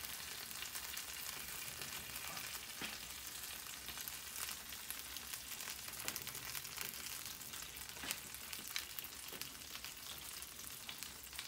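Hot oven-baked chicken drumsticks on a sheet pan sizzling with a steady crackle as buffalo sauce and melted butter are brushed onto them, with scattered small pops.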